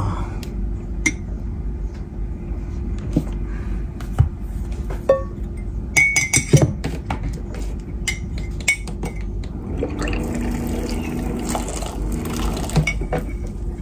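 Dishes, cutlery and glassware clinking and knocking during a meal, in scattered sharp clicks with a busier cluster about six seconds in.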